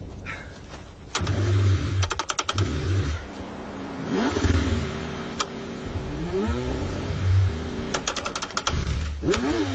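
Car engine being cranked on a freezing cold start, struggling to catch, in repeated bursts with two runs of rapid clicking, about 2 and 8 seconds in, and rising and falling engine pitch in between.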